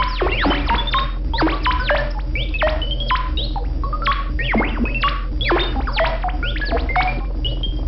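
Buchla and Eurorack modular synthesizers playing a dense stream of quick electronic chirps, several a second. Their pitch sweeps sharply down or up, and some step upward in short runs, over a steady low drone.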